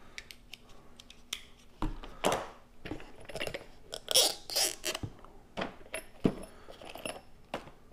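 Small cardboard product box being slit open and unpacked: irregular clicks, scrapes and rustles of cardboard and packaging, loudest in a cluster of rustling about four seconds in.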